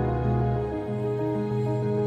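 Background music of slow, sustained chords; the low bass note drops out a little under a second in.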